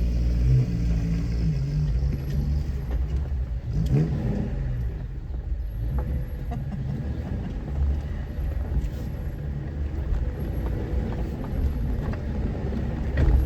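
Off-road vehicle engine running at a low rumble, with short revs about a second in and again about four seconds in.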